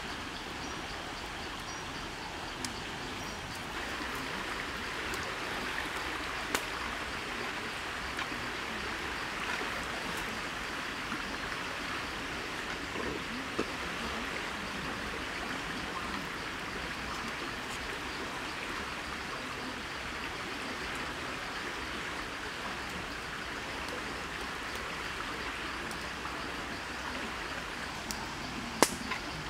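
Curry sauce simmering in a steel wok over a wood fire: a steady bubbling hiss, with a few sharp clicks, the loudest near the end.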